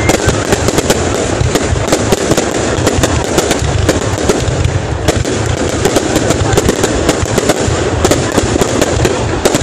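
Fireworks display going off continuously: a dense, unbroken string of sharp bangs and crackles.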